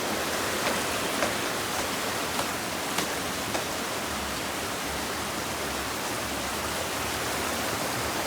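River water rushing, a steady even hiss. Six light clicks come about every half second over the first three and a half seconds.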